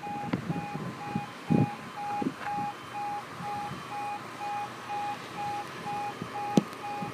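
Automatic level-crossing audible warning: an electronic alarm beeping about twice a second as the half-barriers come down, warning of an approaching train. A few short low thumps sound under it.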